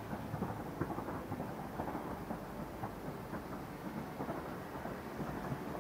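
Fireworks going off densely: many small bursts and crackles in quick succession, merging into a continuous rumble.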